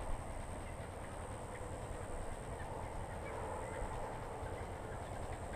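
Outdoor ambience: a steady background hiss and rumble, with a few faint, scattered bird calls.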